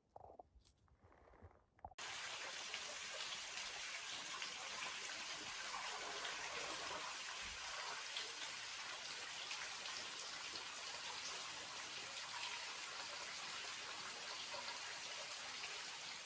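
A few faint knocks, then about two seconds in a steady rush of running or falling water starts abruptly and holds even.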